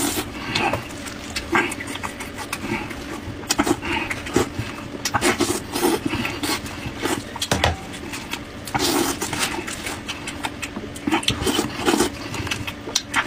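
A man eating sheep head close to the microphone: chewing, sucking and slurping meat off the bone, in irregular wet smacks and clicks.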